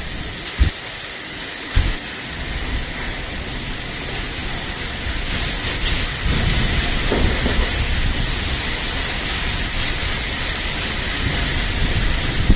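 Heavy rain pouring down in a storm, a steady dense hiss. Two brief low thumps come in the first two seconds, and a low gusty rumble of wind on the microphone builds from about halfway.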